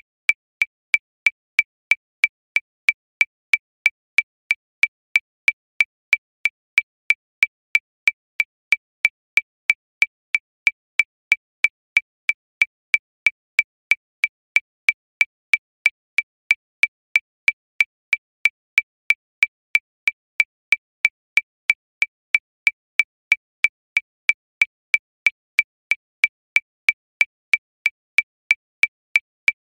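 Metronome clicking at 185 beats per minute: short, high, evenly spaced clicks, about three a second, all at the same loudness.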